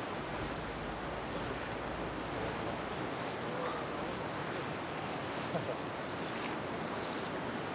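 Steady rush of river water flowing over shallow rapids.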